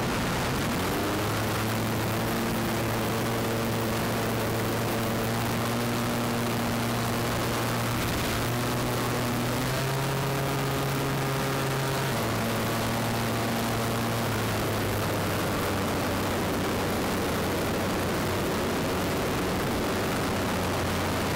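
Propeller engine of an Extra 300 aerobatic plane running in flight, heard with heavy wind rush on the on-board microphone. Its pitch rises just after the start, steps up about ten seconds in and drops back two seconds later. The engine tone then sinks into the wind noise for the last several seconds.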